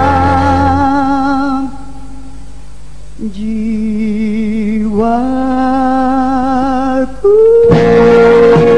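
A singer holding long notes with a wide vibrato over a band accompaniment. Near the end the band comes in louder and the voice rises to a long, high held note.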